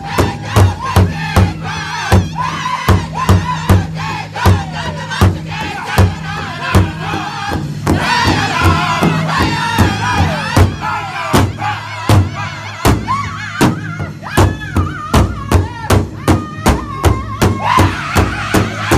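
Powwow drum group singing together in high voices over one large shared drum struck in unison, about two beats a second. About eight seconds in the drumming stops for two or three seconds while the men keep singing, then the beat comes back.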